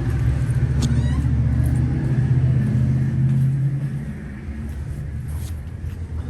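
Car engine and road rumble, a steady low drone that is loudest for the first four seconds and then eases off.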